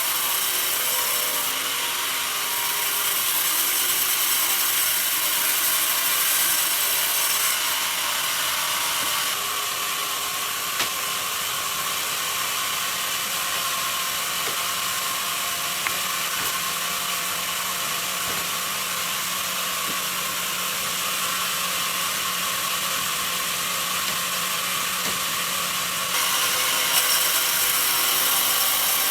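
Sawmill bandsaw running and cutting through a mahogany log, a steady high sawing hiss. About nine seconds in the sound changes and a low steady hum comes in; near the end the sawing grows louder again.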